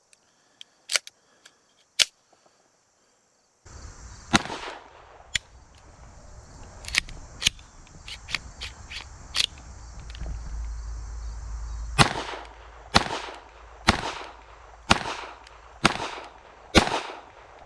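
Smith & Wesson M&P 2.0 .22 Magnum semi-auto pistol firing: scattered sharp cracks and clicks at first, then a steady string of six shots about a second apart near the end, each with a short ringing tail.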